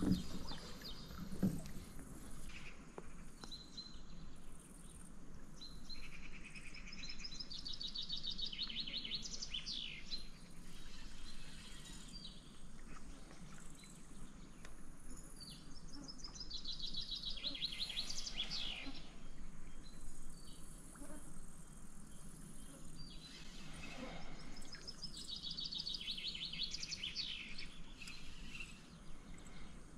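A songbird singing the same short phrase of quick high notes three times, about eight seconds apart, over a faint steady low background noise. Two short knocks come in the first couple of seconds.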